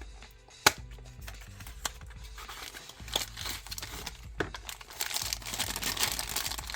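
Packaging being crinkled and rustled as a rotary tool is unpacked from its box, starting with a sharp click and growing louder and denser toward the end.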